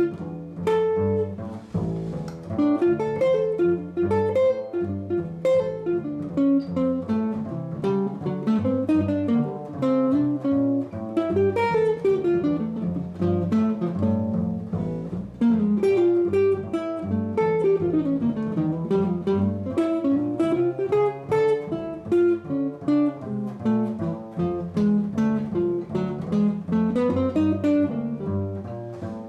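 Live small-group jazz: a hollow-body archtop guitar plays a flowing single-note solo line that runs up and down, over a pizzicato upright bass.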